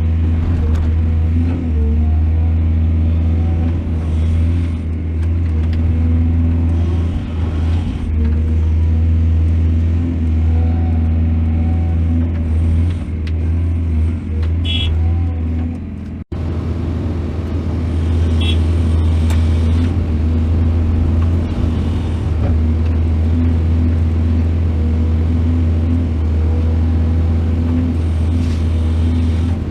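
Heavy diesel engine of an excavator running steadily at a constant pitch, with a deep low hum. A few short high-pitched squeaks come just before the middle, and the sound cuts out for an instant about halfway through.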